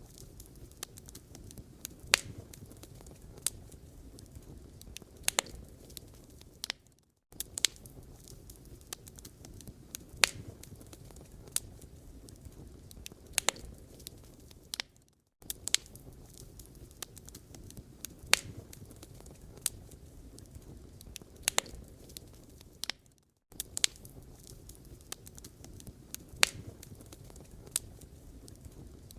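Wood fire burning in a fireplace: scattered sharp crackles and pops over a low, soft noise of burning. The same stretch of crackling repeats about every eight seconds, and each join has a brief drop to silence.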